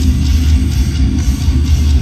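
Hard rock band playing live and loud through a festival sound system: electric guitars, bass guitar and drums.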